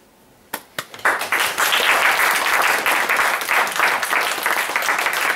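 Audience applauding: a couple of single claps about half a second in, then steady applause from about a second in.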